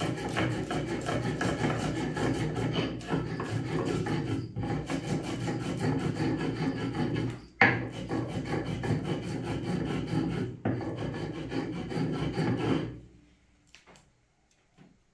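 Cumin, black pepper, cloves and garlic being ground by hand: a continuous rasping, rubbing grind. It breaks off briefly a few times, has one sharp knock about halfway, and stops near the end.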